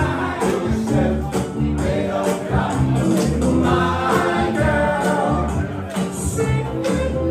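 Vocal group singing live through microphones, a lead voice with backing harmonies, over amplified accompaniment with a steady beat.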